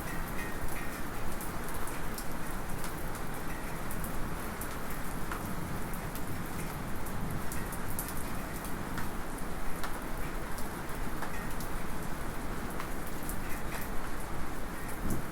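Light rain falling steadily, with many separate drops ticking sharply, and a small metallic drip.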